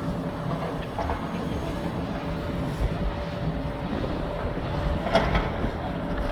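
Construction-site ambience: a steady low machinery and traffic rumble with a faint steady hum, broken by a short knock about a second in and a louder clank about five seconds in.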